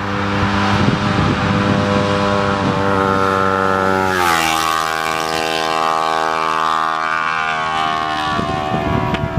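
Kawasaki Ninja 250R's parallel-twin engine through a custom GP-style exhaust, passing by at speed: a steady engine note that drops in pitch about four seconds in as the bike goes past, then fades near the end.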